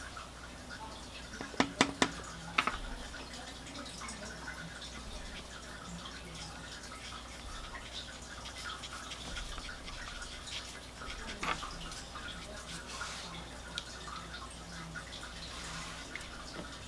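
Watercolor brush working on paper in soft scrubbing strokes, with a cluster of sharp taps about two seconds in and another single tap later.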